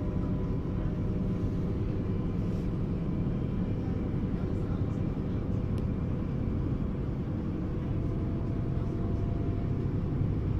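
Steady running noise of a regional passenger train heard from inside the coach: a continuous low rumble of wheels on rail, with faint steady tones above it.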